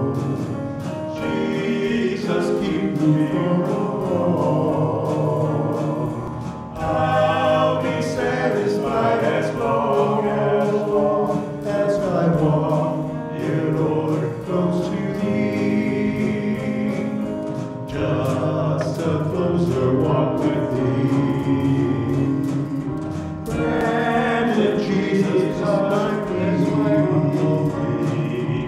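Men singing a gospel song into microphones over music, in sung phrases broken by short breaths.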